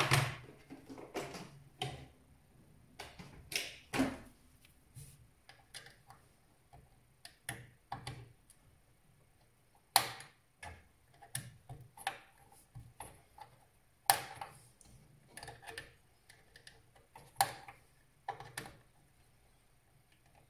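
Irregular sharp clicks and taps, a few of them louder, of the dead CMOS coin-cell battery being pried out of its holder on a PC motherboard.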